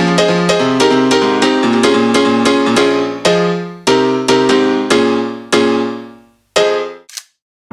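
Background keyboard music in a piano sound: quick, evenly repeated chords, then several held chords struck about a second apart that each fade away, and a short final chord before a brief silence near the end.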